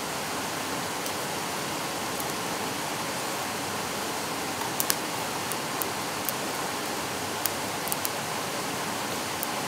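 Steady rush of a whitewater stream, with a few sharp pops of wood crackling in the fire, mostly in the second half.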